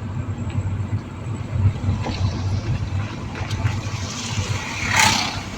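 Car driving, heard from inside the cabin: a steady low engine and road rumble, with a brief hissing whoosh about five seconds in.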